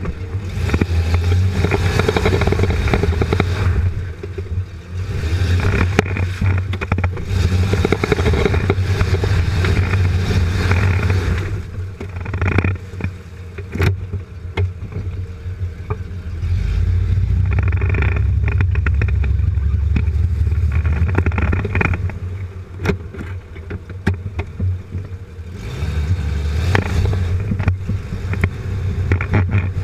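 Jeep Cherokee XJ heard from underneath the chassis, its engine and drivetrain pulling in several long surges with quieter spells between as it crawls a rough trail. Scattered knocks and clatter ride over the low rumble.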